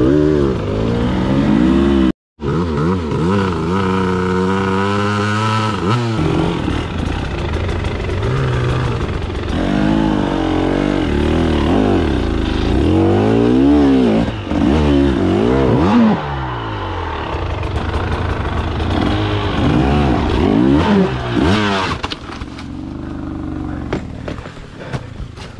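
A KTM 300 TBI two-stroke single-cylinder dirt bike engine revs up and down over and over as it is ridden off-road, its pitch rising and falling with the throttle. The sound cuts out completely for a moment about two seconds in. Near the end it drops to a lower, quieter running.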